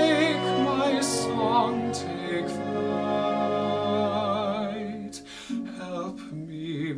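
Orchestral backing music for a slow musical-theatre ballad, with sustained melody notes wavering in vibrato; the music thins out about five seconds in before new notes come in.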